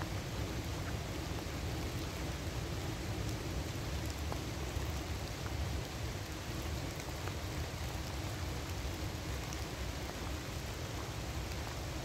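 Steady rain falling on leaves: a constant hiss with scattered single drop ticks, over an unsteady low rumble.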